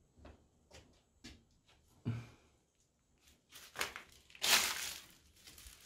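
Dry stalks and leaves crunching and rustling. A few light clicks and knocks come first, then loud crunching bursts about four seconds in.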